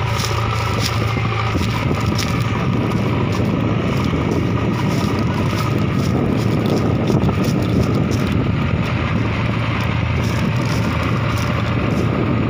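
Diesel engines of farm tractors and a JCB backhoe loader running steadily under heavy load as they pull and push a stuck, heavily loaded sugarcane trolley. Wind is buffeting the microphone.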